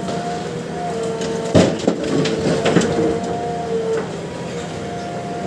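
JCB excavator running with a steady whine, and a burst of clattering knocks from soil and stones in the bucket about a second and a half in, lasting about a second.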